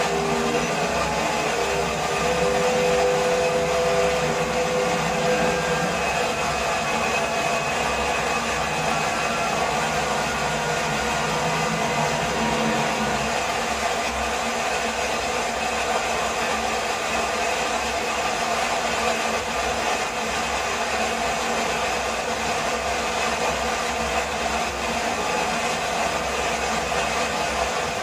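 Steady rushing of water pouring over a waterfall.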